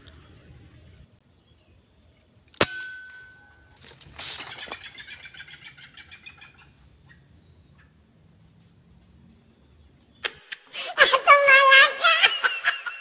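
A scoped air rifle fires once about two and a half seconds in, a sharp crack with a brief ringing tone, over a steady high insect drone; about a second and a half later a rustling burst in the brush fades away. Near the end a man's loud wailing voice takes over.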